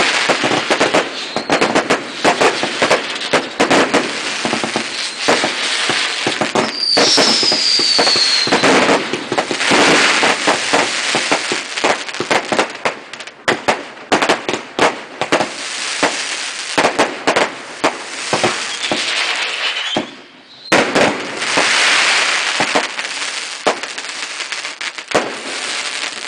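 A fireworks finale barrage: a dense, rapid string of bangs and crackle. A falling whistle sounds about seven seconds in, and a brief break comes around twenty seconds before the barrage resumes and thins out near the end.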